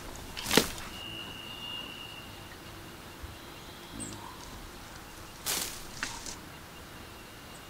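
A western lowland gorilla feeding on leafy plants: a few sharp snaps and rustles as stems are pulled and broken, the loudest about half a second in and two more around five to six seconds in. A faint thin high whistle sounds briefly about a second in.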